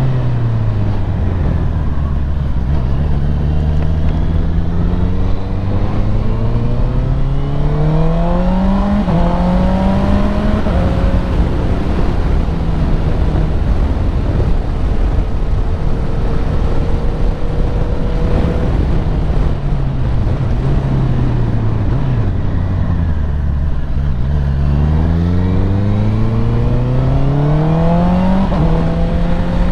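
Honda CBR650R inline-four with an Akrapovic exhaust under way: the engine note drops to low revs, climbs through a gear change around nine to ten seconds in, holds steady for several seconds, falls off again, then climbs once more with another gear change near the end.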